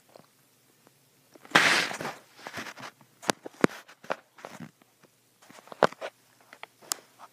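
Handling noises of a plastic toy combine and its corn header as the header is being fitted: a short rustle about a second and a half in, then a series of sharp plastic clicks and knocks.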